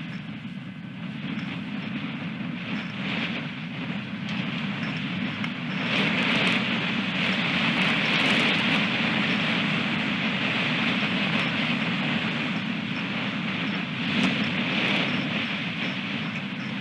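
Strong wind blowing across the nest camera's outdoor microphone, a continuous rushing rumble that gusts louder about six seconds in.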